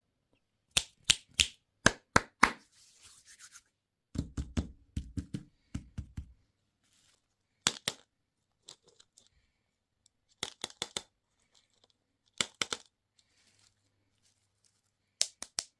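Plastic candy and toy packaging being handled and opened: clusters of sharp crinkles and crackles with short pauses between, and a run of low muffled thumps about four seconds in.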